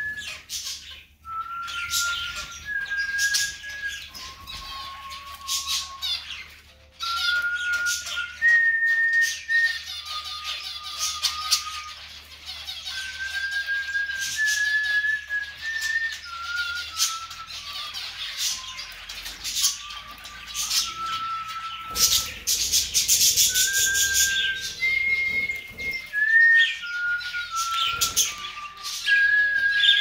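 A whistled tune of steady held notes stepping up and down in pitch, one note after another, with cockatiels chirping over it, the chirping busiest a little past the middle.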